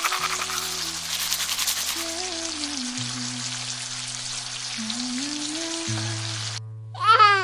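Background music of held low chords and a simple melody, over a steady hiss. Near the end the music stops briefly and a high, wavering voice breaks in loudly.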